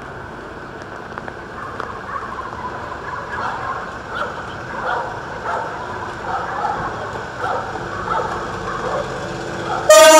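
Railway station background with a steady hiss and scattered short, irregular sounds. Near the end a locomotive horn suddenly sounds, very loud, a chord of several tones.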